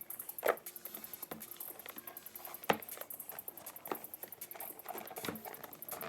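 Light clicks, taps and scrapes of an iPad being slid out of its cardboard box, with a sharper click about half a second in and another a little before three seconds in.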